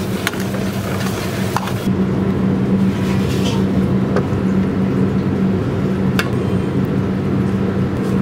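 Steady mechanical hum and rush of a restaurant kitchen's machinery, with a high sizzle of gravy in the pan that stops about two seconds in and a few light clinks of utensils.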